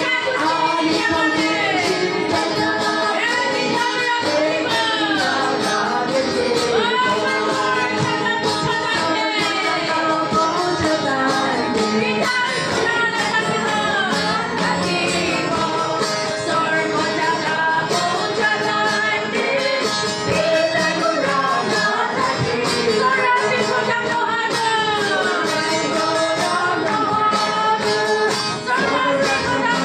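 A group of mostly women's voices, with some men, singing a worship song together into microphones, continuously and without a break.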